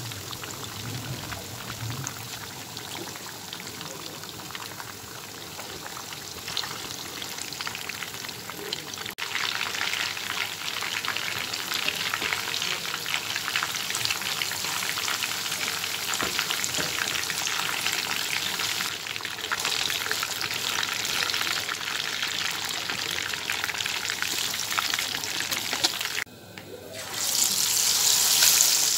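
Spice-battered fish pieces deep-frying in hot oil, a steady sizzle. Near the end a fresh raw battered piece goes into the oil and the sizzle surges louder.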